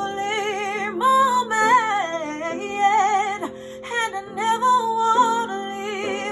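Woman singing a slow worship song with vibrato and melismatic runs, over sustained instrumental accompaniment.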